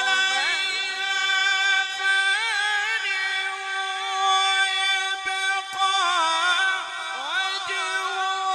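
A male qari chanting Quran recitation in a long, melodic phrase of held notes and wavering ornamental turns.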